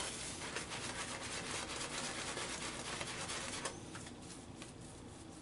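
Fendrihan Black and Clear shaving brush scrubbing lather onto the face in quick wet rubbing strokes. The strokes grow softer about two-thirds of the way in.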